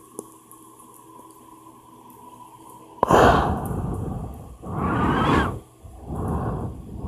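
A man's heavy breaths close to the microphone: after a quiet stretch with a faint steady high tone, three long, loud breaths come about three seconds in and at roughly one-and-a-half-second spacing.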